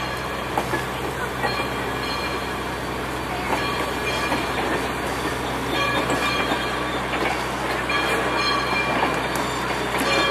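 Train approaching on the track: a steady rolling rumble with wheels clicking over the rail joints and a faint thin squeal now and then.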